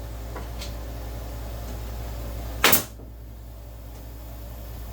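A staple gun fires once a little past halfway, a single loud, sharp snap driving a staple into a wooden beehive frame, over a steady low hum.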